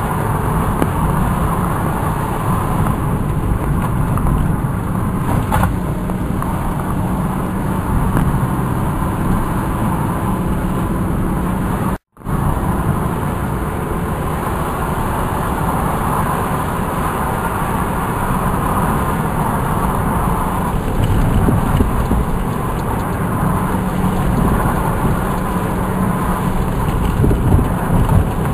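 Car driving steadily along a dry road, engine and tyre noise heard from inside the cabin. The sound cuts out completely for a moment about twelve seconds in.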